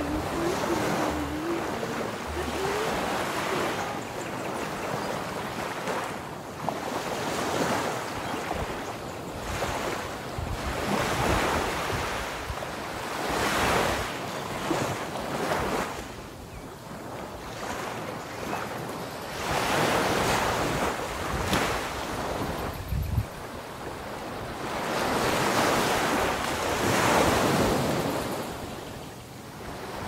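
Ocean surf breaking on a beach, the wash of the waves swelling and falling back every few seconds.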